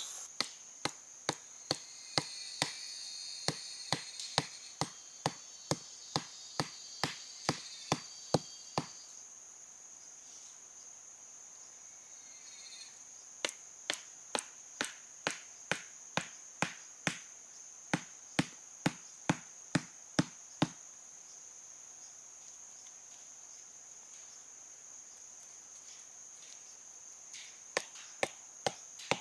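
Repeated sharp chopping strikes, a little over two a second, in three runs broken by pauses of several seconds, over a continuous high-pitched insect drone.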